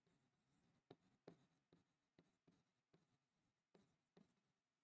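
Near silence broken by faint, irregular ticks and light scrapes of a stylus writing by hand on an interactive display board.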